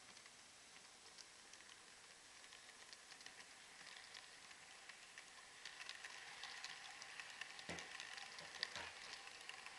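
Roco model train wheels rolling over the track, a faint rapid patter of small clicks that grows denser and louder from about four seconds in as the wagons pass close by, with two sharper knocks near the end.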